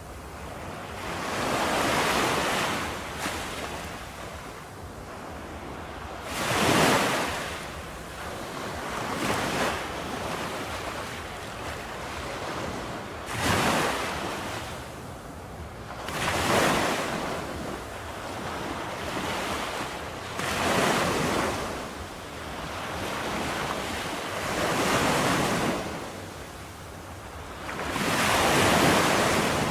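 Ocean waves breaking on a shore: about eight surges of surf a few seconds apart, each swelling and falling away over a steady wash of water.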